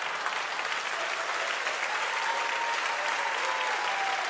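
Theatre audience applauding steadily after a comedy punchline, with a faint held tone in the middle of the applause.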